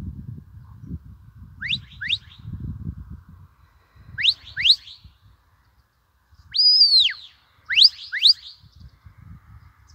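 Shepherd's whistle commands to a working sheepdog: two quick rising whistles, two more a couple of seconds later, then one long whistle that rises, holds and falls, then two more quick rising whistles. Wind rumbles on the microphone in the first few seconds.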